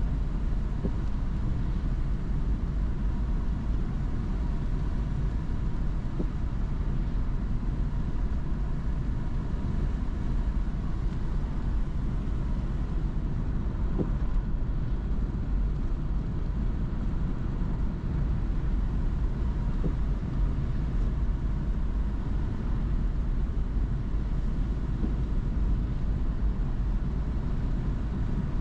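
Steady road and engine noise of a car being driven, even in level throughout.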